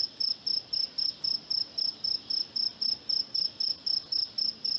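A cricket chirping steadily: a high, short chirp repeated evenly about four times a second.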